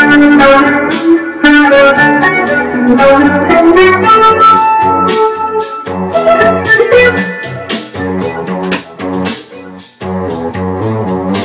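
Electric guitar and keyboard playing together in an improvised jam, plucked guitar notes over bass notes and some held keyboard tones. The playing thins out briefly just before the end.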